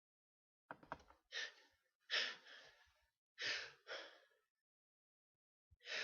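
A person's sharp, breathy gasps and huffs during a sneezing fit: about five in quick succession in the first few seconds, then a pause, then another near the end.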